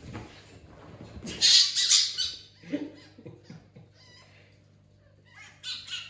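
Cockatoo squawking harshly: a loud double screech about a second and a half in, and a shorter one near the end.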